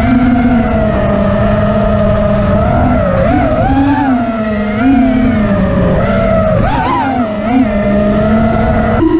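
FPV racing quadcopter's brushless motors (TBS 2345KV) spinning 5-inch three-blade props at high speed, a loud buzzing whine whose pitch keeps rising and falling as the throttle is worked.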